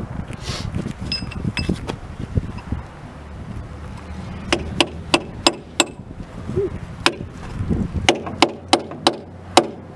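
Hand hammer striking the steel running gear of a steam locomotive, a quick run of sharp metallic blows starting about halfway in, then two more, then a longer run near the end, working loose a tight-fitting part.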